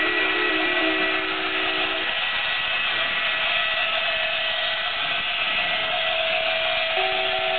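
A simple, tinny melody plays one note at a time from the musical toys of a Christmas display. It stops about two seconds in and starts again near the end, over a steady whirring hiss with a held tone.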